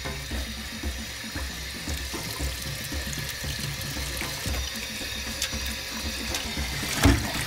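Tap water running into a stainless steel dog bowl in a steel sink as the bowl is scrubbed by hand with a sponge. A single sharp metal knock sounds near the end.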